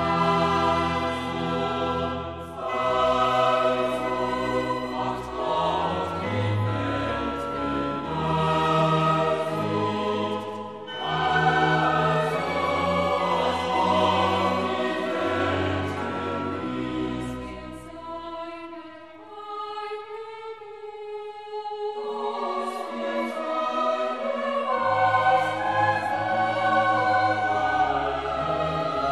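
Classical choral music: a choir singing with orchestra, thinning to fewer, higher parts for a few seconds about two-thirds of the way through before the full sound returns.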